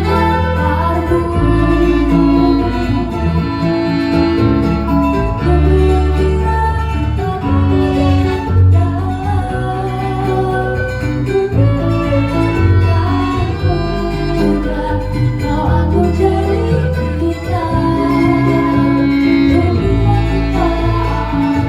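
Background music with plucked and bowed strings, a steady bass line and a sung melody.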